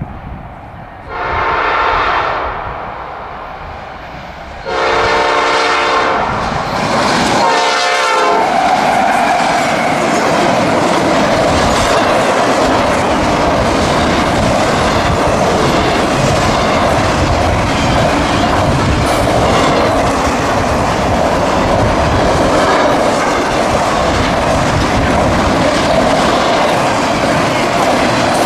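CSX freight train's locomotive horn sounds three blasts, the first two longer and the third short. The train then passes close by: a steady, loud running noise with wheels clicking over the rail joints.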